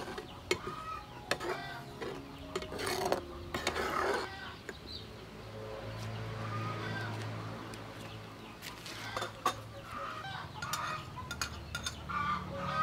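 Metal spatula scraping and knocking against a frying pan as a thick sauce is stirred, several sharp clinks in the first few seconds. Domestic chickens cluck in short calls through the second half.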